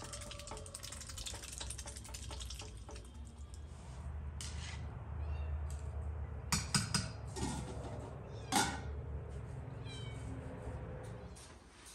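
A Muscovy duck dabbling its bill in a water trough, with quick fine splashing over the first three seconds, then a few sharp clinks and knocks of a bowl and bucket being handled, the loudest about eight and a half seconds in. A short animal call or two sounds among them over a steady low rumble.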